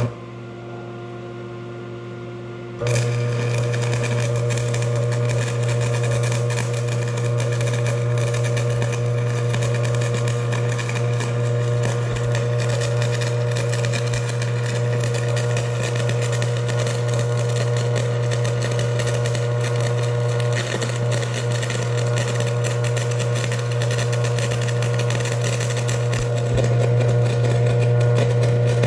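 A Harbor Freight Vulcan Commander 225 transformer 'buzz box' arc welder hums steadily. About three seconds in, an arc is struck and a 7018 stick electrode burns with a continuous crackle and sizzle over the welder's low buzz, running a bead without a break.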